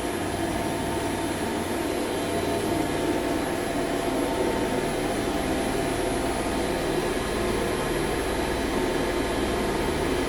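Elevator traction machine running steadily as it drives the car down: an even electric-motor hum and mechanical whir from the hoist machine and its sheave.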